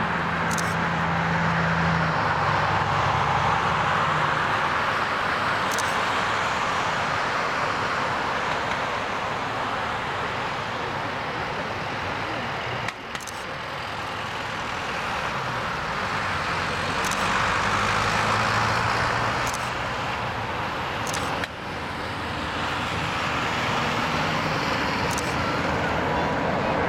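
Airbus A380 four-engine jetliner at takeoff thrust: a steady, distant jet roar through the takeoff run, liftoff and initial climb.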